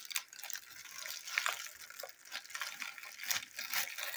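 Plastic bubble mailer crinkling and rustling in an irregular patter of small crackles as hands pull it open.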